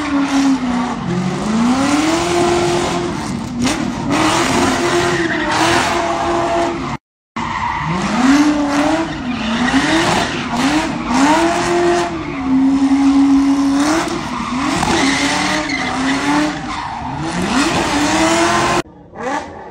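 A car doing donuts: the engine revs up and down again and again, its pitch climbing and falling every second or two, over a steady screech of spinning tyres. The sound cuts out for a moment about seven seconds in.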